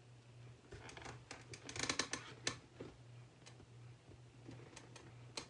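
Cardboard shipping box and the clear plastic packing-slip pouch on it being handled: faint scattered crinkles, clicks and scratches, busiest about two seconds in, over a steady low hum.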